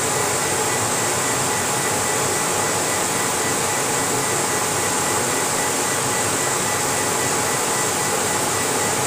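Laser engraving machine running while it engraves a wood sheet: a steady rush of air noise with faint steady whining tones.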